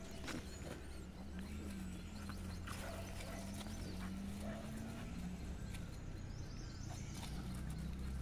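Dogs play-fighting: low growling and the scuffle of paws on sandy ground, over a steady low rumble.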